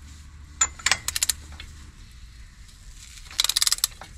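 Sharp metallic clinks from a socket wrench being fitted onto a car's axle nut: a few single clicks about half a second in, then a quick run of even ratchet clicks near the end.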